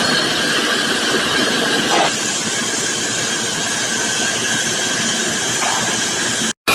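Large metal lathe cutting steel: a steady hissing screech with a high, thin whine running through it. It breaks off abruptly near the end.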